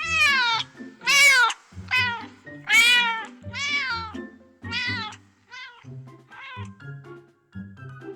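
Cats meowing in a quick series of about eight or nine rising-then-falling meows, loud in the first half and fainter toward the end, over background music.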